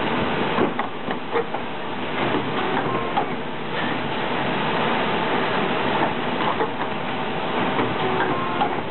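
Double corner rounding machine working through stacks of notebooks: several short sharp knocks as its cutters strike, over the steady loud hum of factory machinery.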